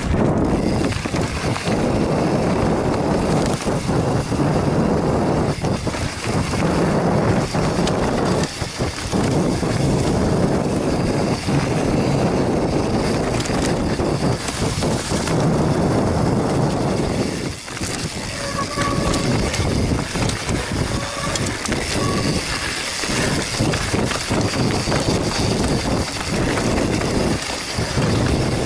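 Mountain bike running fast down a dirt trail: a steady rush of wind over the camera microphone and tyre noise on dirt and leaves, broken by frequent knocks and rattles as the bike hits bumps.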